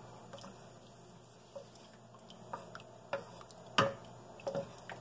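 Wooden spoon stirring tomato sauce and diced tomatoes in a stainless steel pot: wet sloshing with scattered knocks of the spoon against the pot, the loudest a little before four seconds in.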